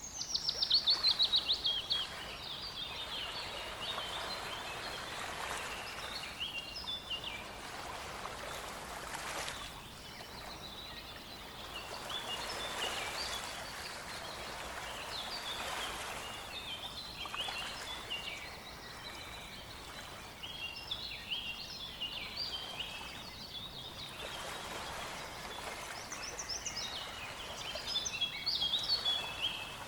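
Several songbirds singing and chirping over a steady rush of river water. The loudest moment is a fast trill falling in pitch in the first second or so, and the song grows busier again near the end.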